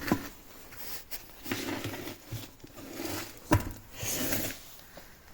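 A removed car wheel being handled and laid under the car: scuffing and shuffling, with a sharp knock about three and a half seconds in.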